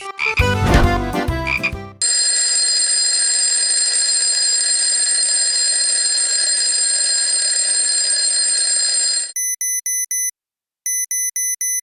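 Alarm clock sounds in sequence. A clattering ring lasts about two seconds. Then a steady, loud alarm ring runs for about seven seconds and cuts off suddenly. Last comes an electronic alarm beeping in quick bursts of four beeps, heard twice.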